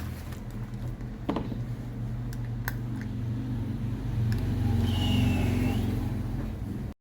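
Light clicks and taps of small repair tools on a smartphone being taken apart, over a steady low hum.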